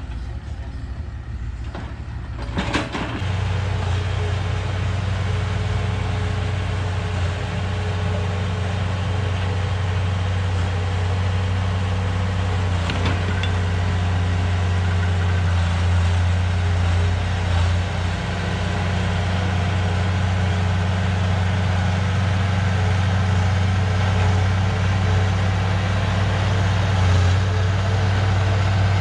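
Diesel engine of heavy earthmoving machinery running steadily under work, growing louder about three seconds in.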